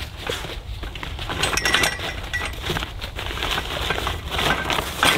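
Metal tent pole sections clinking and knocking against each other as they are worked out of a fabric pole bag, with the bag rustling. Short clicks throughout, a couple of brief metallic rings near the middle, and the rustling grows louder toward the end.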